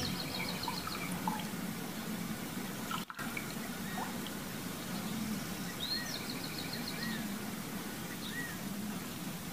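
Garden ambience from a film soundtrack: water trickling steadily, with birds chirping and trilling now and then. The sound drops out for a split second about three seconds in.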